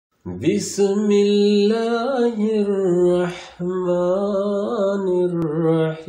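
A single voice chanting an Islamic devotional chant unaccompanied, in long, drawn-out notes with small wavering ornaments and a short break about three and a half seconds in.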